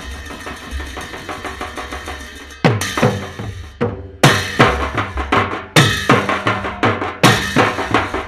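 Live folk drumming: a quick, softer patter of strokes, then about two and a half seconds in, loud drum beats enter and keep a steady driving rhythm of roughly two to three strokes a second.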